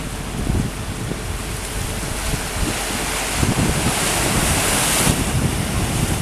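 Wind buffeting the microphone with an irregular low rumble over a steady rush of wind and water. About halfway through the rushing hiss swells for a couple of seconds, then drops off suddenly.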